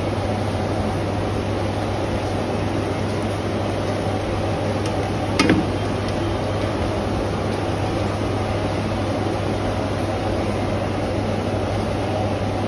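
Steady rushing noise with a low hum from a large aluminium pot of chicken gravy boiling hard on a strong fire while rice is added for dum biryani. A single short knock about five seconds in.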